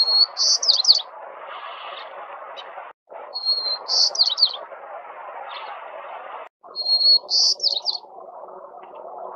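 White-crowned sparrow singing three songs, about three and a half seconds apart. Each song opens with a clear held whistle and runs into a quick series of sweeping notes, over a steady background noise.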